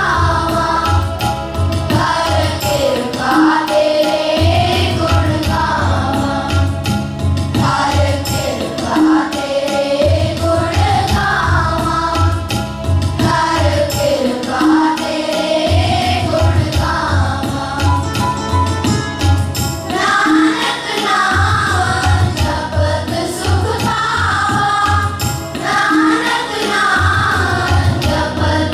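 A group of voices singing a Sikh shabad (devotional hymn) together, with a drum keeping a steady beat underneath that drops out briefly a few times.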